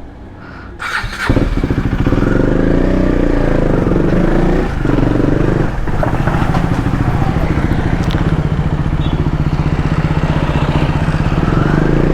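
KTM Duke motorcycle engine starting about a second in, then running steadily with a fast pulsing beat, dipping briefly twice near the middle.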